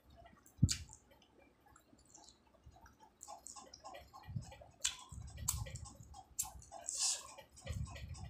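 Close-miked eating of spicy Maggi instant noodles: wet chewing and mouth clicks, with a sharp click near the start and several short slurps in the second half as strands are sucked in.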